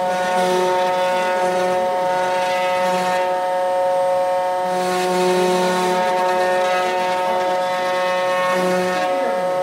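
Desktop CNC wood router running, its spindle giving a steady high whine while the bit cuts wood, the cutting hiss and a lower hum coming and going as the machine moves.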